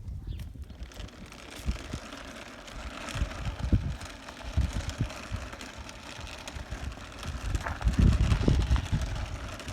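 Remote-control toy car driving, its motor and wheels giving a steady hiss. Irregular low thumps on the microphone, loudest about eight seconds in.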